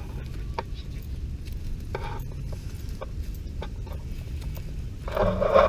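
Small dogs on a walk: scattered light clicks and rustling over a low rumble, with a short, louder dog vocal sound about five seconds in.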